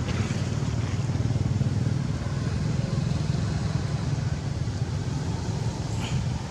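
Steady low engine rumble, like a motorcycle running, with a brief high chirp about six seconds in.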